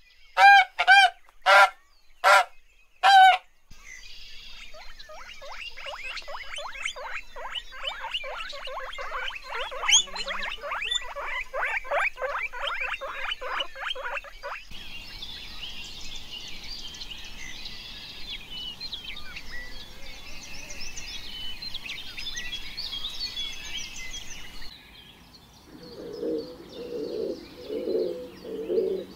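A Chinese goose honks loudly five times. Then come rapid high-pitched squeaks from guinea pigs for about ten seconds, followed by a longer stretch of busier, higher chirping. Near the end, pigeons coo in low, repeated phrases.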